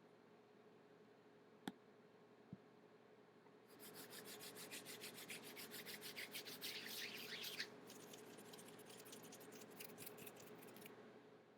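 Hands rubbed briskly together, a fast run of quick rasping strokes lasting about four seconds, a brief pause, then a second run of about three seconds; two faint clicks come before it.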